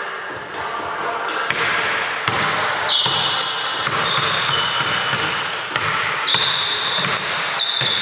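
A basketball dribbled on a hardwood indoor court, bouncing at an irregular pace, with sneakers squeaking sharply on the floor from about three seconds in.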